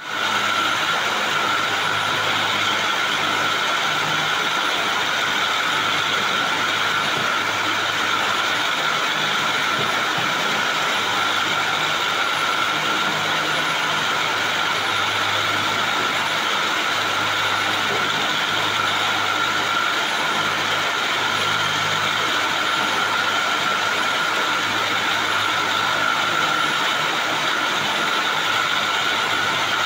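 Spinning frame running steadily, a dense, unchanging mechanical hum of its spindles and rollers with a constant high whine over it.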